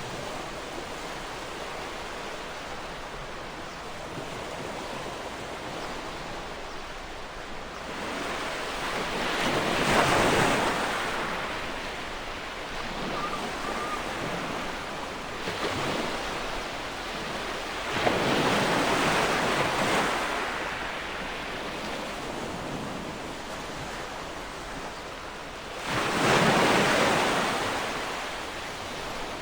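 Ocean waves breaking on a shore: a steady wash of surf, with three bigger waves surging up and fading away about eight seconds apart, and a smaller one between the first two.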